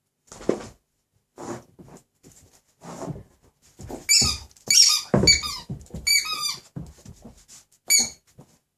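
A Dobermann chewing a squeaky rubber pig toy: soft thuds and mouthing noises at first, then a run of high-pitched squeaks in the second half, the last one near the end.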